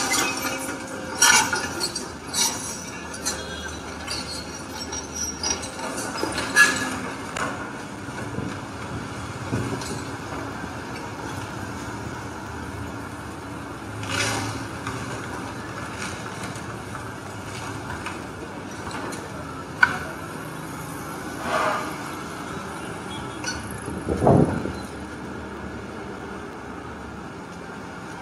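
Demolition by an XCMG excavator tearing down a timber and corrugated-metal roof: clanking, clattering knocks of falling wood and metal sheeting, many in the first few seconds and then single knocks now and then, over a steady hum of machinery and street traffic.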